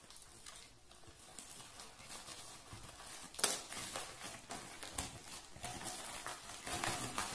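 Plastic courier mailer bag crinkling and rustling as it is cut open and the bubble-wrapped parcel inside is pulled out, with irregular sharp crackles, the loudest about three and a half seconds in.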